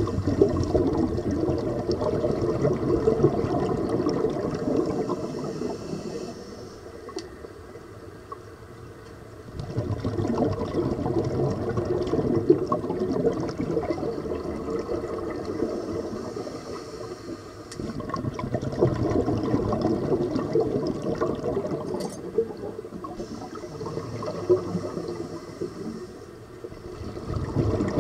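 Scuba breathing heard underwater: long stretches of bubbling exhaust from the regulator as the diver exhales, alternating with shorter, quieter stretches of high hiss as he inhales, a slow breathing cycle of a few breaths.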